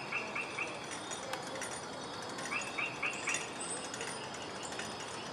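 A bird calling: a quick run of four or five repeated chirps at the start, and another run of four about two and a half seconds in, over steady background hiss.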